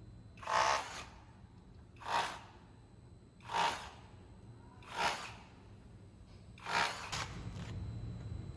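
INGCO 20V cordless rotary hammer drill knocking loose, spalled concrete off a wall in five short bursts about a second and a half apart. Near the end it settles into a steadier run.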